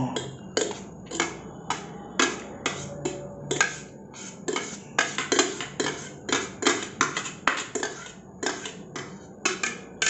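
A metal spoon scraping and knocking against the inside of a stainless-steel electric kettle, in short repeated strokes about two or three a second, as cooked sticky vermicelli is scraped out.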